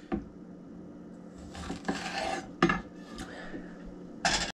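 A chef's knife knocking and clicking on a wooden cutting board as chili peppers are sliced, with a few louder clatters of the knife and cut pieces being handled. The sound cuts off abruptly at the end.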